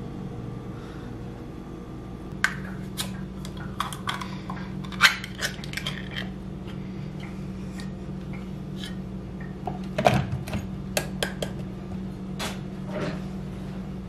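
Kitchenware being handled on a counter: scattered clinks and knocks of a plastic food container, a plate and a small can, the loudest about five and ten seconds in, over a steady low hum.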